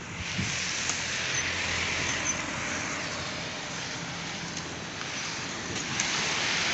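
Cars passing on a wet, slushy road: a steady hiss of tyres on wet asphalt that swells and fades as vehicles go by.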